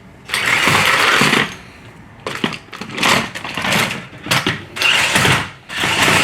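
Remote-control toy stunt car's small electric motors and gearbox whirring in stop-start bursts as it is driven: one longer run near the start, then a string of short bursts.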